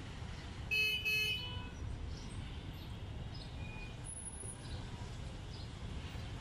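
A vehicle horn tooting twice in quick succession about a second in, over a steady low rumble of traffic.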